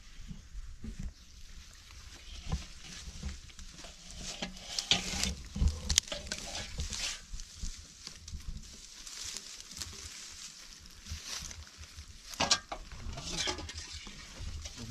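Footsteps rustling through dry grass and stepping into shallow muddy water, irregular crackles with a few sharper knocks, the loudest about five, six and twelve and a half seconds in.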